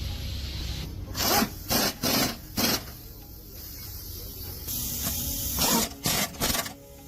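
Repeated rasping strokes of a hand tool worked back and forth, in two runs of three or four short strokes, over a steady low hum.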